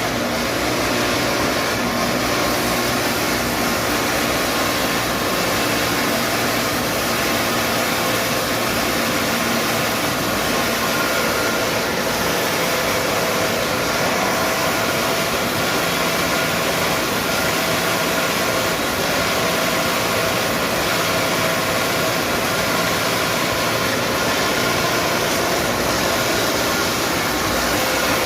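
Electric motor of a home-built band saw blade sharpening machine running steadily, a constant whirring hiss with no breaks.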